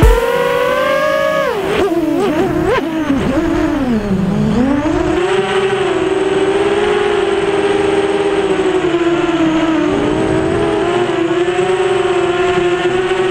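Mini FPV quadcopter's brushless motors and propellers whining, the pitch following the throttle: it rises, drops sharply and sags lowest about four seconds in, then climbs back to a nearly steady whine.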